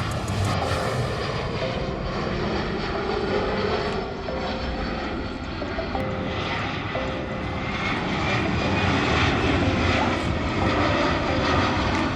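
Airliner engines running loud and steady as a plane passes, swelling a little toward the end, with a faint whine rising in pitch partway through.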